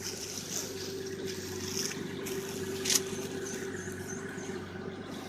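Truck engine idling with a steady hum, and a short sharp click about three seconds in.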